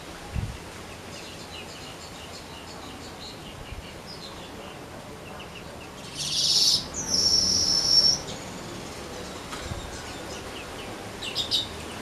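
Manyar weaver bird singing: soft high chirps, then about halfway a loud buzzy rasp running into a long, high, steady wheeze of about two seconds, and a short high chatter near the end. A brief low thump sounds just after the start.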